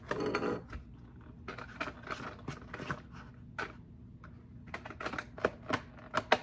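Hard plastic toy pet carrier being handled and opened: an irregular string of light plastic clicks, knocks and rattles.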